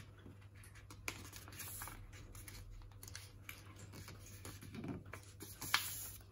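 A sheet of A4 paper being folded and pressed flat by hand on a tabletop: faint rustling and crinkling with scattered crisp clicks, the sharpest about a second in and near the end.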